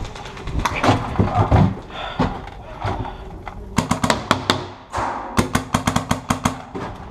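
Paintball marker firing two rapid strings of shots, about eight a second, after a few scattered knocks.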